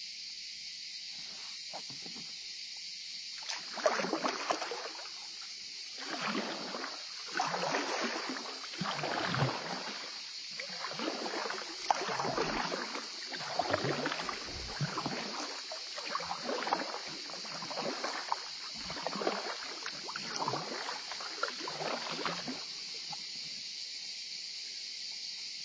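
Kayak paddle strokes in calm water: the blades dip and pull through the surface in a steady rhythm, about one splashy stroke a second. The strokes start a few seconds in and stop a few seconds before the end. A steady high hiss runs underneath.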